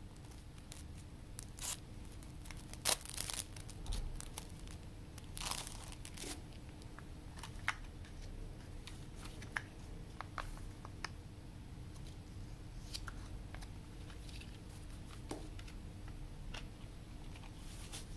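Cellophane shrink-wrap crinkling and tearing as it is stripped off a plastic CD jewel case, loudest in the first six seconds. Scattered light clicks and taps of the plastic case being handled and opened follow.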